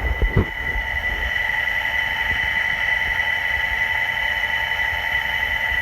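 Dryer motor running with a steady high-pitched whine over a low rumble: the abnormal motor noise that the owner is complaining about. A couple of low thumps just at the start.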